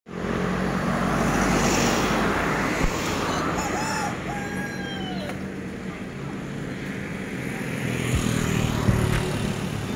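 Road traffic going by, with cars passing loudest at the start and again near the end. A rooster crows once, about four seconds in.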